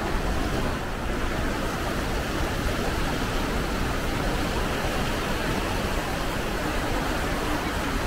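Steady rushing of the swollen Iguazú River pouring through rapids and around rocks, a continuous noise heavy in the low end.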